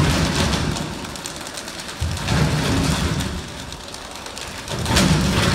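Audience applauding and cheering, swelling louder three times: at the start, about two seconds in, and near the end.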